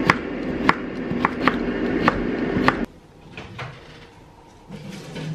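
Serrated kitchen knife slicing a cucumber on a wooden chopping board: about six sharp cuts in the first three seconds over a steady hum. Then the chopping and the hum stop abruptly and the sound drops much quieter.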